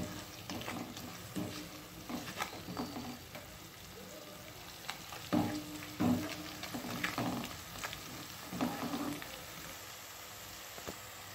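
Chopped onions, green chillies and ginger sizzling in hot oil in a kadhai, with a spatula stirring and scraping against the pan in irregular strokes, the loudest about five and six seconds in.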